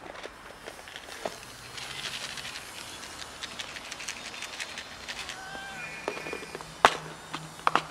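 A plastic food container and dry cat food being handled, making a rattling rustle followed by a few sharp clicks near the end. A brief high cat mew comes about halfway through.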